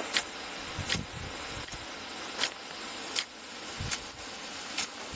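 A 2-inch aluminium impact rain gun spraying, with a steady hiss from its water jet and six sharp, irregularly spaced clicks about a second apart as its swinging drive arm strikes and steps the gun around.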